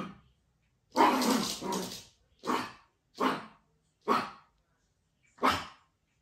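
Yorkshire terrier barking in an excited fit: about six loud barks, the first two close together, then single barks roughly a second apart.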